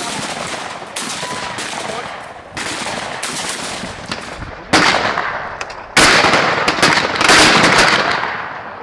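Shotguns firing at clay targets, shot after shot in quick succession, each with a long rolling tail. The loudest shots come about halfway through and about six seconds in.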